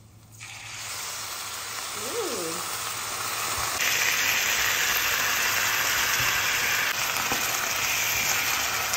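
Frying pan sizzling as sardines go into hot oil with browned onions, ginger, garlic, curry leaves and chilies. The sizzle starts about half a second in and gets louder about four seconds in.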